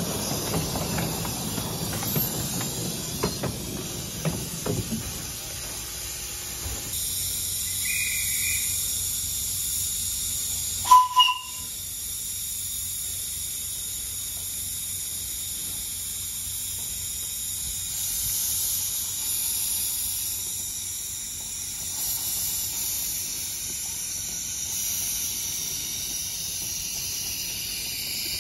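Miniature 10¼-inch gauge Bullock Pacific 4-6-2 steam locomotive hissing steadily as steam escapes by the cylinders, with its wheels rumbling and clicking over the track in the first few seconds. Two very short whistle toots come partway through.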